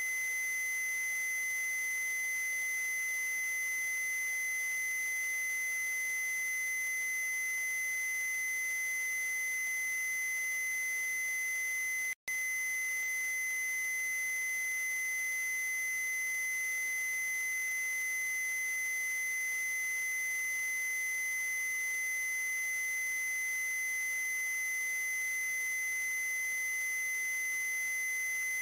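A steady, high electronic tone over a faint hiss, unbroken except for a brief dropout about twelve seconds in.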